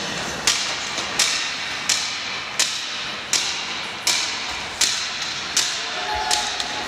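A steady rhythm of sharp knocks, about three every two seconds, each echoing briefly in the hall of the ice rink.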